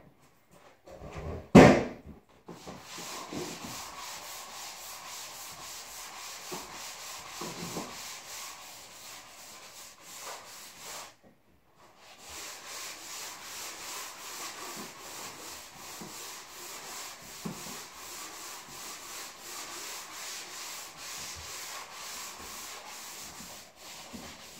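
A sharp knock about a second and a half in, then hand sanding of dried drywall joint compound on a wall: steady back-and-forth rubbing strokes, with a brief pause near the middle.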